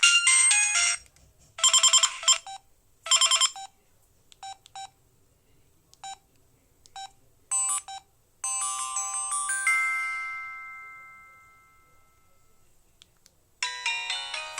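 Samsung SGH-E900 mobile phone playing its built-in tones one after another: the end of one melody, two short bright chimes, a few single beeps, then a chord that rings out and fades over about four seconds. A new melody starts shortly before the end.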